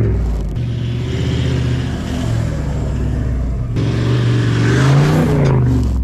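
Toyota Land Cruiser Troop Carrier driving through soft beach sand, its engine revving hard under load with a hiss of tyres and sand; the engine note rises and falls about four seconds in.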